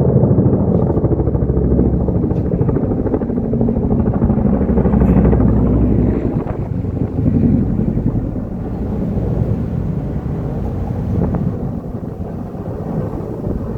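Firefighting water-drop helicopter flying close by, its rotor beating rapidly and steadily. It eases away over the last couple of seconds.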